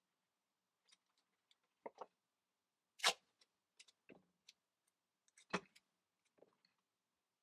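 Scattered small clicks and taps of hands handling cardboard pieces, a box knife and a tape roll on a wooden work board, with two louder knocks, about three seconds in and about five and a half seconds in.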